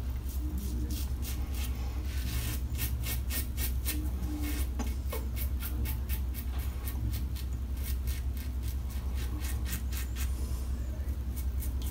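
Karve CB double-edge safety razor scraping through lathered stubble across the grain: a quick run of short, crisp scratches, about two or three strokes a second, over a steady low hum.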